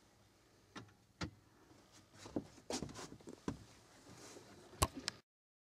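Faint scattered knocks, taps and rustles of a person shifting about and handling the camera at close range, with a sharper knock near the end before the sound cuts off suddenly.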